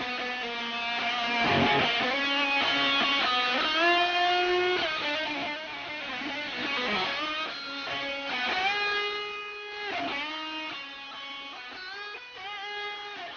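Outro music: guitar, likely electric, playing notes that bend in pitch, fading out near the end.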